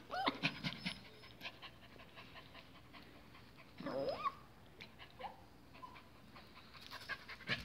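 Miniature pinschers panting, with faint clicks and scuffs and a short whine about four seconds in.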